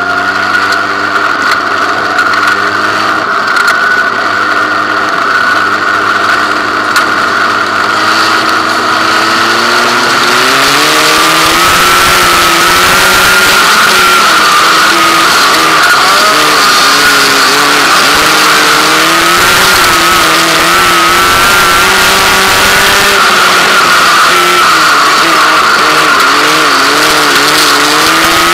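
Sprint car engine heard from onboard the car. It runs fairly steadily at first; about ten seconds in it climbs higher, and its pitch then keeps rising and falling as the driver gets on and off the throttle, over a constant rushing hiss.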